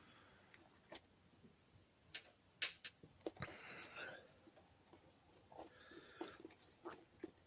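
Faint, scattered clicks and light scraping from small carburetor parts being handled during disassembly and cleaning.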